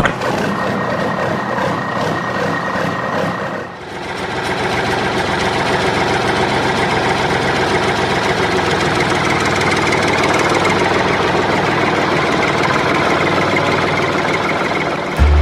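A tractor engine running steadily. Its sound dips briefly about four seconds in, then builds back up and runs evenly again.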